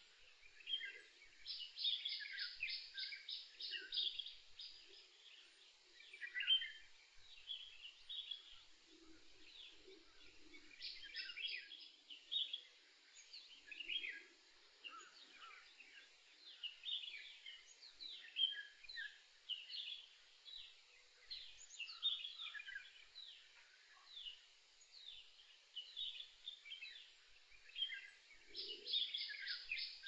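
Songbirds singing and calling in a forest chorus: many short high chirps and quick falling notes, with a fast trill of rapidly repeated notes three times, each a second or two long.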